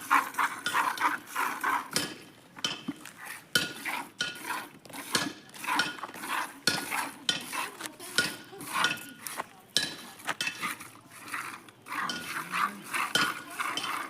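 Milk squirting into a steel pail as a Gir cow is milked by hand: a fast, uneven run of short clinking, splashing strokes. A faint low animal call rises about twelve seconds in.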